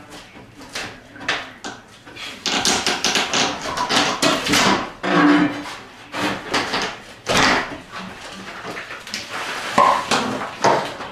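Lumber being handled over open floor joists: irregular knocks, clatter and scrapes of wooden boards and debris, densest through the middle.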